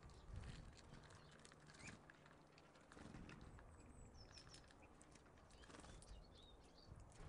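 Faint, short high chirps of small songbirds at a seed feeder, a few midway and a couple more near the end, among scattered light clicks and taps, over a low rumble.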